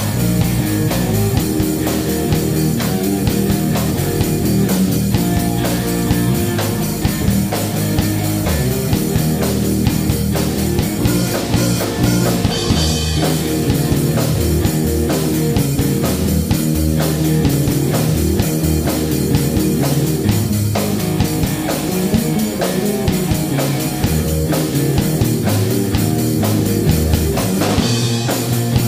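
Live rock band playing an instrumental number on electric guitars and a drum kit, loud and steady with no singing.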